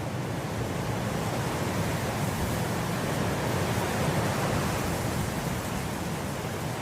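Steady wind blowing through grass, a broad rushing noise that swells gently toward the middle and eases slightly near the end.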